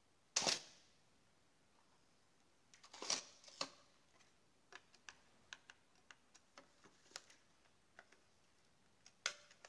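Mamiya RZ67 medium-format film camera firing its shutter with one sharp clack about half a second in, then a cluster of clicks around three seconds in and a run of small, separate mechanical clicks as the camera's controls are worked by hand, with one more sharp click near the end.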